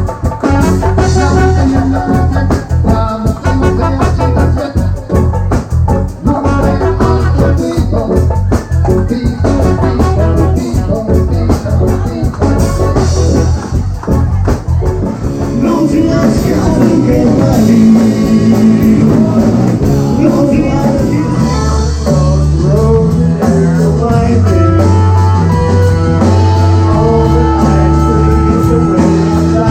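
Background music with a busy beat; about halfway through the beat drops away and held bass notes and a melody carry on.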